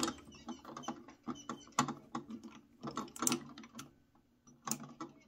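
Drill press chuck being worked with a chuck key to reset the drill bit higher: an irregular run of metal clicks and ratcheting knocks.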